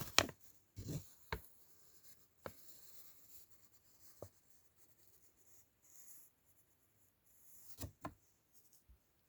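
Small plastic toy pieces and packaging being handled: a scatter of sharp clicks and taps with soft rustling between them, loudest near the start and again about eight seconds in.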